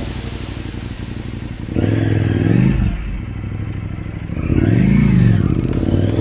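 KTM motorcycle engine running at low speed. The throttle is opened twice, about two and about five seconds in, each time revving up and back down, and a third rev begins right at the end.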